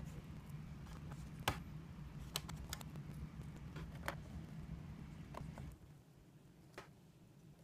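Scattered small clicks and taps of hands handling the laptop's bottom case and its screws, over a low steady hum that stops about six seconds in.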